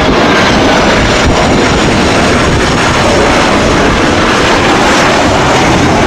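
Twin-engine jet airliner's engines running close by at the runway: a loud, steady rush of jet noise.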